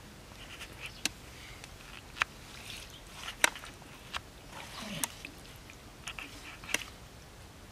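A hand digging and pressing in wet mud, with soft wet squelches and about six sharp, irregular clicks and pops.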